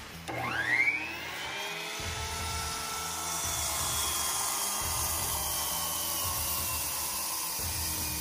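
Skilsaw circular saw spinning up with a rising whine just after the start, then running steadily as it cuts through a ponderosa pine timber, its pitch dipping slightly as the blade bites into the wood.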